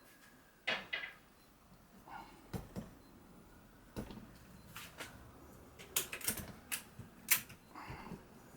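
A string of irregular sharp clicks and knocks from handling a motorcycle rear shock absorber and its spring, held under light tension by a tie-down strap. They come thickest about six to seven and a half seconds in.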